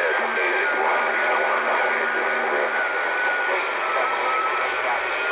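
CB radio receiver hissing with static while an incoming signal holds the squelch open and moves the signal meter needle, with a faint steady whistle running through the noise.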